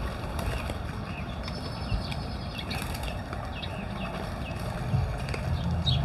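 Outdoor ambience at a feeding station: a flock of doves flapping in to land on a hanging feeder, with faint scattered bird chirps over a steady low rumble.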